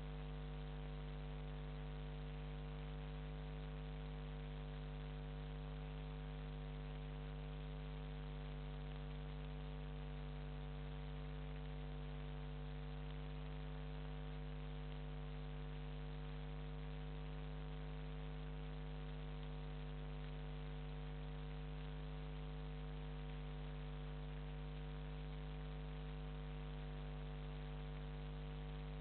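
Steady electrical mains hum with a faint hiss, unchanging throughout.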